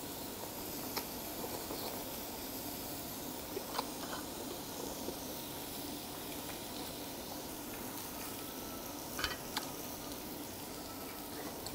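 Hanwoo ribeye sizzling on a charcoal grill: a steady, soft hiss, with a few sharp clicks scattered through.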